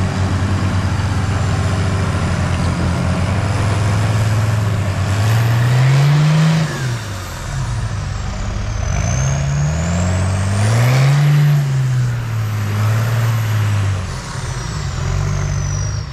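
Cummins diesel engine in an off-road truck running steadily, then revving up and back down twice. A thin high whistle glides down and up above it as it revs.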